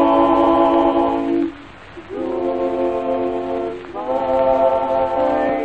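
Singing: three long held notes with short breaks between them.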